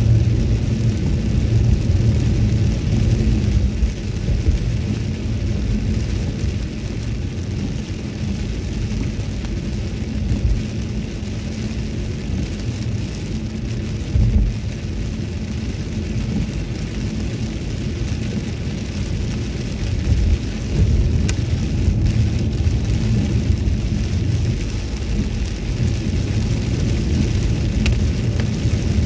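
Toyota Celsior driving on a rain-soaked road, heard from inside the cabin: a steady low road rumble under the hiss of tyres on wet asphalt and rain on the car, with a couple of brief bumps about halfway and two-thirds through.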